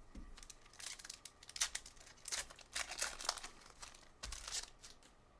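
A foil trading-card pack wrapper being torn open and crinkled, a run of short crackly rustles over a few seconds.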